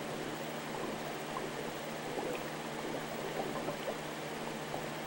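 Water bubbling and trickling in an aquarium tank, a steady run of small irregular gurgles over a constant low hum.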